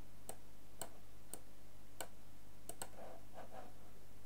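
Optical PC mouse buttons clicking: about six single sharp clicks at uneven intervals, with a quick pair about two-thirds through.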